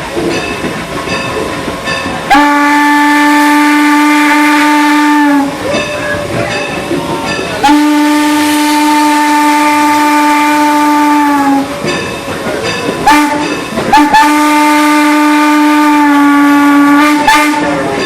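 Steam locomotive whistle blowing the grade-crossing signal: two long blasts, a short one, then a final long blast. It is loud over the rumble of the moving train.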